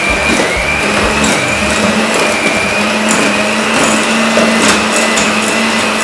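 Binatone electric hand mixer running steadily, its beaters churning soft butter in a glass bowl while the butter is being creamed. The motor makes a steady high whine over a low hum, with a few light clicks from the beaters against the bowl.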